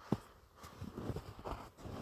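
Footsteps trudging through deep snow, a series of uneven crunches, with one sharper thud just after the start.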